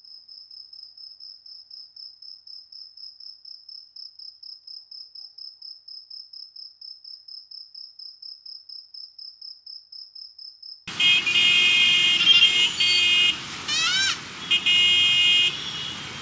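A cricket chirping on its own, one high, even pulse about five times a second. About eleven seconds in it cuts abruptly to loud street traffic: vehicle horns honking in several tones, with a few quick rising whistle-like sweeps.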